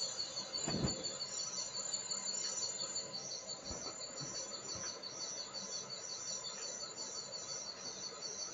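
Crickets chirping steadily: a high, fast trill with a second chirp repeating about twice a second. A faint low knock comes about a second in.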